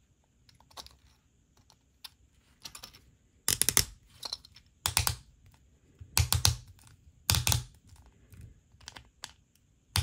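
Screwdriver tip grinding and clicking against a small 3D-printed plastic threaded part as it is forced into a too-tight thread. The strongest bursts come four times, from about 3.5 s to 7.5 s in, with lighter clicks between; the forcing damages the printed screw end.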